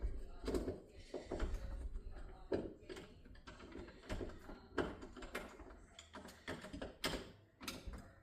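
Irregular clicks and knocks of old door-handle hardware being worked loose and taken off the door.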